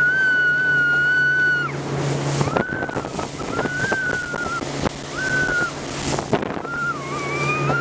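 Speedboat engine droning steadily, with wind buffeting the microphone and water rushing past the hull. A high, wavering tone comes and goes over it several times, held for a second or two and then sliding away.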